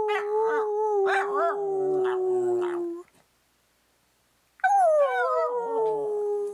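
Australian Shepherd vocalizing in two long, drawn-out calls. The first wavers and slowly falls in pitch for about three seconds. After a short silence, the second starts higher and slides down.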